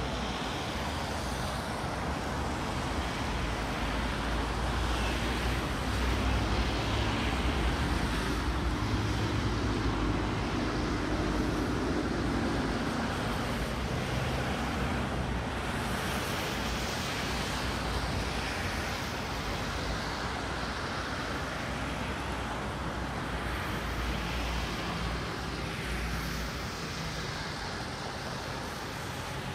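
Street traffic: vehicles passing with steady road noise and a low engine rumble. An engine hum swells about a quarter of the way in and fades out near the middle.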